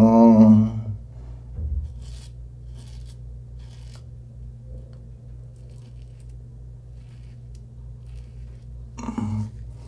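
Merkur 34G double-edge safety razor scraping stubble in short, faint, irregular strokes on the chin and neck: touch-up passes after feeling for missed spots. A short hummed voice sound opens it.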